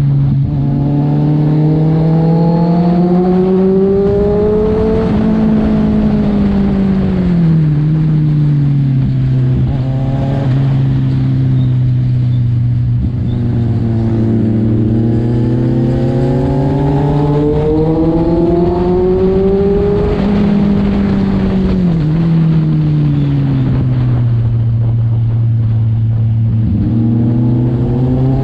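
Kawasaki Z1000's inline-four engine and exhaust under way, the revs climbing twice under throttle and dropping back each time, running low and steady in between, then climbing again near the end.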